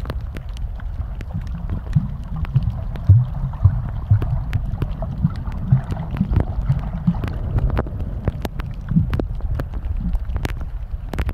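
Muffled underwater sound picked up by a camera held below the surface: a steady low rumble of moving water, with many scattered sharp clicks and crackles.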